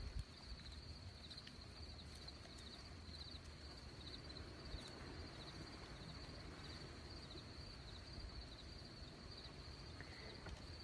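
Faint, high-pitched insect chirping in a steady, evenly repeating pulse, over a low outdoor rumble.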